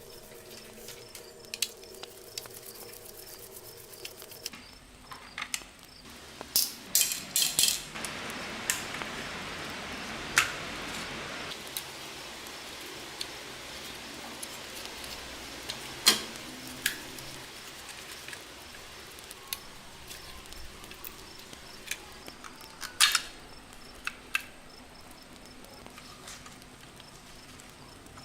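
Light clinks and taps of small hard parts being handled, with a few seconds of steady hiss or scrubbing about a third of the way in.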